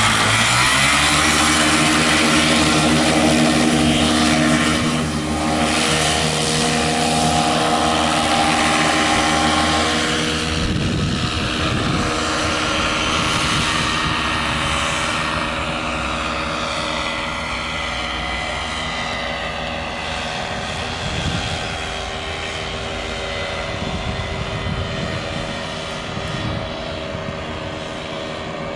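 Paramotor engine and propeller running steadily through the take-off run and climb-out: a droning engine note that drops in loudness about five seconds in and then fades gradually as the paramotor flies away.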